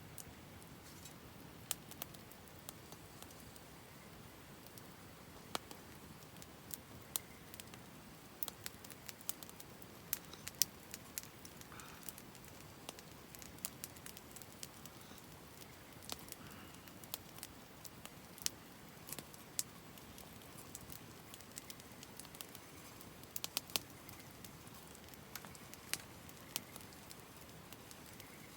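Wood campfire crackling: irregular sharp pops and snaps, several a second at times, over a faint low hiss.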